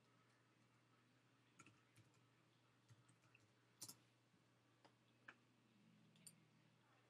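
Near silence with a steady low hum and about seven faint, sharp ticks at irregular intervals, the loudest about four seconds in.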